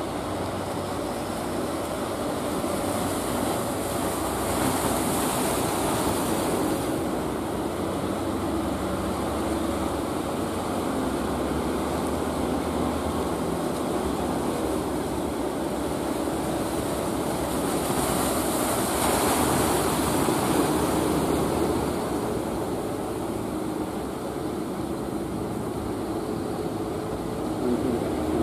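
Inboard engines of wooden fishing boats running steadily under the noise of breaking surf, with two louder hissing rushes of water, a few seconds in and again about two thirds of the way through.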